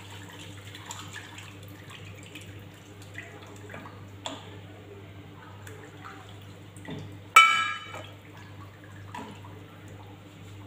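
Bula (enset starch) being stirred into simmering water in a cooking pot, with faint bubbling and scraping. About seven seconds in there is a single sharp clank with a brief ringing.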